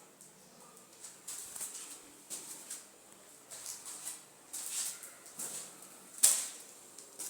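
Short scraping strokes of a tiling tool over cement mortar or tile, roughly one a second, with one louder stroke near the end.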